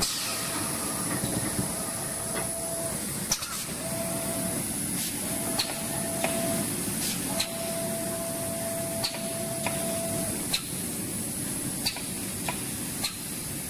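Rotary label die-cutting machine running: a steady mechanical hiss and hum with light clicks at uneven intervals, and a thin steady whine that switches on and off several times until about ten seconds in.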